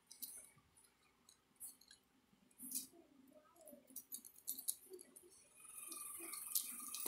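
Faint scattered clicks and rustles of a plastic plug cord cap and rubber-jacketed cable being handled as the cap's housing is fitted onto the cord end. A faint steady hiss comes in over the last second or so.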